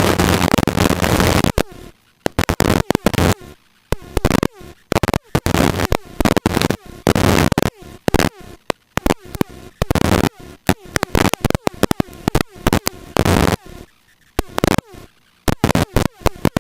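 Loud hiss-like noise over the headset audio that cuts in and out abruptly in many short, irregular bursts after about a second and a half, like an intercom or radio channel opening and closing.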